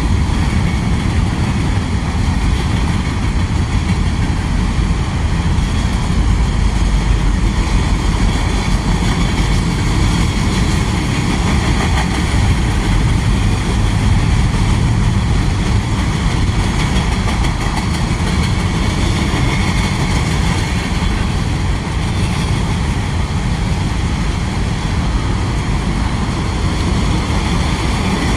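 Freight train rolling past, with a steady low rumble from its diesel engines and wheels.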